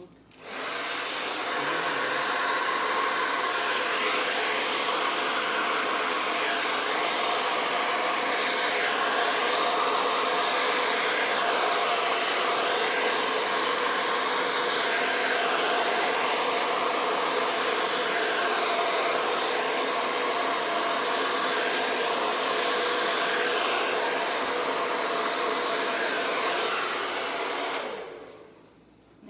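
Hand-held hair dryer running on its cool-air setting, blowing across wet acrylic paint on a canvas: a steady whirring hiss with a hum under it. It is switched on about half a second in and off shortly before the end.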